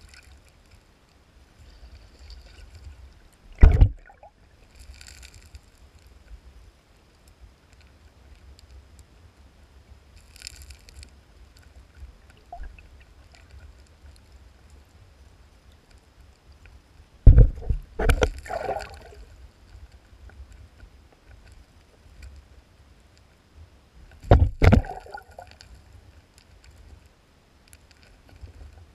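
Shallow stream water heard through an underwater camera housing: a steady low rumble with gurgling. It is broken by loud knocks and thumps about four seconds in, as a cluster around two-thirds of the way through, and again near the end, from spawning sockeye salmon thrashing right at the camera.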